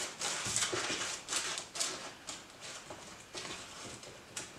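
Wooden spoon pressing and scraping sticky rocky road mixture into a parchment-lined metal baking tin, with the baking paper rustling. Irregular scrapes come a couple of times a second and grow fainter towards the end.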